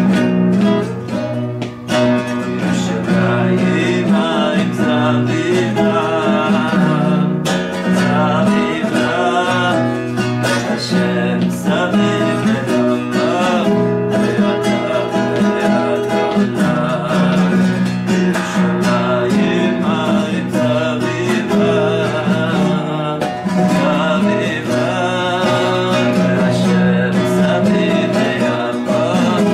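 Acoustic guitar strummed in a steady rhythm, a capo on its neck, with a man's voice singing a melody over the chords.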